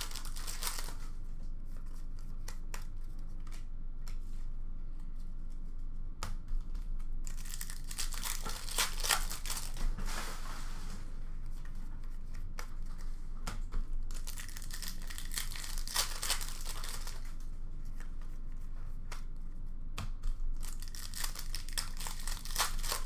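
Upper Deck Series 1 hockey card pack wrappers being torn open and crinkled, in several spells a few seconds apart, with short clicks of cards being handled between.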